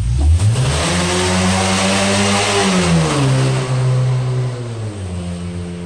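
A Honda Civic accelerating hard past with a loud exhaust. The engine note climbs, drops at a gear change about three seconds in, then holds lower and eases off slightly near the end.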